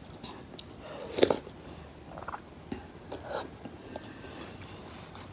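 Close-miked eating: chewing spicy instant noodles, with scattered soft mouth clicks and a louder wet mouth sound about a second in.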